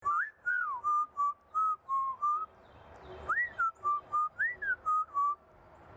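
African grey parrot whistling a tune: two runs of short whistled notes, most held at about one pitch with a few quick rising and falling slides, with a short pause between the runs.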